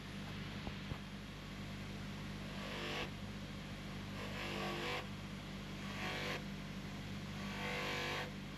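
Polishing machine motor running with a steady low hum, while a watch case is worked against the spinning polishing wheel in repeated strokes. Each stroke is a hiss that swells and fades, about every one and a half seconds.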